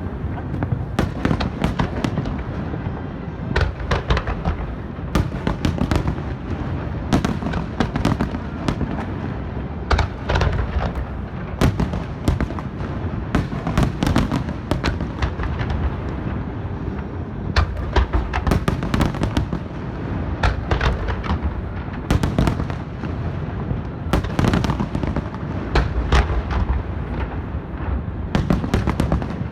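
Large aerial fireworks display: shells bursting in quick succession, sharp bangs coming several times a second over a continuous low rumble and crackle.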